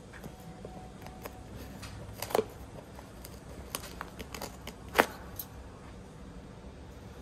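Old upholstery fabric being pulled off a sofa arm's wooden frame, with scattered sharp clicks and ticks as it tears free of its staples. There are two louder snaps, about two and a half seconds in and about five seconds in.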